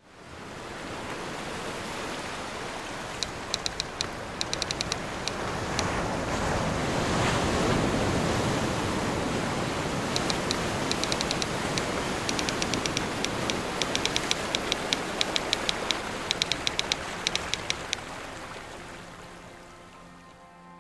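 Ocean waves washing ashore as a steady rushing that swells and then fades away near the end, with bursts of rapid high-pitched clicking over it.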